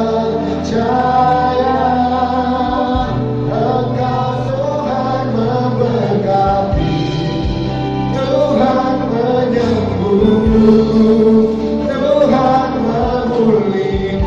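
Gospel worship song sung by a choir over a band with a steady bass line and low drum beats.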